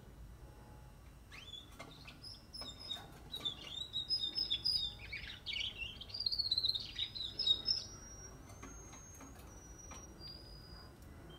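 A 44-day-old Russian canary singing its early juvenile song: a run of chirps and quick twittering warbles starting a little over a second in, loudest past the middle, then a few thin, drawn-out whistled notes.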